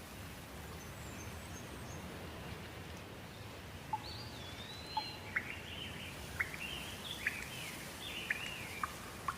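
Bird singing over a steady rain ambience. From about four seconds in comes a run of high, sliding whistled notes broken by sharp short chips.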